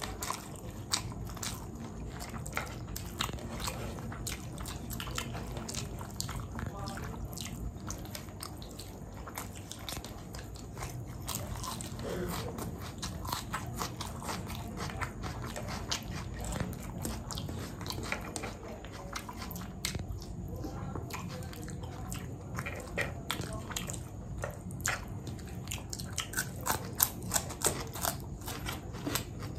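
A person chewing and biting food close to the microphone: a steady run of wet mouth clicks and small crunches, coming thicker and louder near the end.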